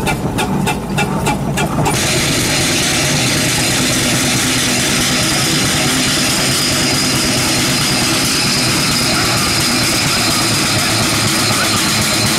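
Steam traction engine chuffing, its exhaust beating about four times a second. About two seconds in, this gives way abruptly to a steady engine rumble with hiss.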